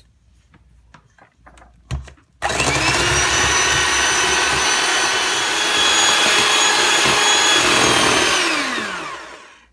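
Handheld electric mixer beating eggs and sugar in a stainless steel bowl: it starts a couple of seconds in and runs steadily with a motor whine, then is switched off near the end and winds down, the whine falling in pitch.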